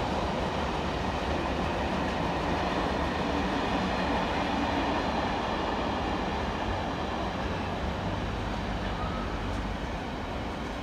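Intermodal container freight train's wagons rolling past on the far line: a steady rumble of wheels on rail, growing a little quieter near the end as the last wagons go by.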